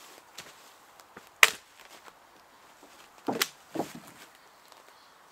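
Logs and branches knocking together as they are set down on a pile of wood in a canoe: one sharp knock about a second and a half in, then a few heavier clunks in quick succession a couple of seconds later.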